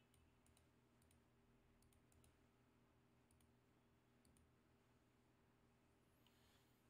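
Near silence with a faint steady hum and a few scattered, irregular faint clicks from a computer mouse and keyboard.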